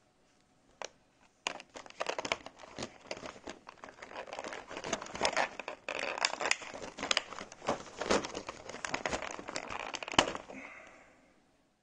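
Thin black vacuum-formed plastic tray crinkling and crackling as plastic miniatures are prised out of its moulded slots. A single click comes about a second in, then a dense run of small crackles and clicks lasts until near the end.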